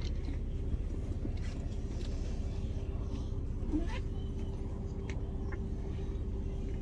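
Passenger ferry's engines running under way, heard inside the cabin as a steady low drone with one constant hum over it, and a few faint clicks.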